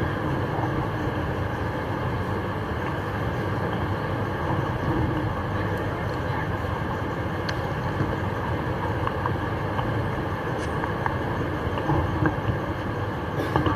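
Steady low rumble and hum of room background noise, with faint scattered clicks and rustles.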